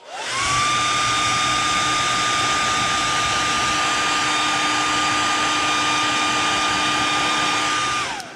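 Hair dryer blowing on freshly airbrushed paint to dry it: the motor spins up within about half a second, runs steadily with a whine over the rush of air, and winds down near the end.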